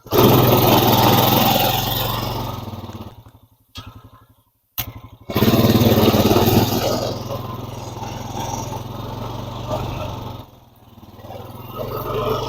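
A gasoline engine running, with a steady low pulse, and revving loudly under load twice. The sound drops out abruptly between the two stretches.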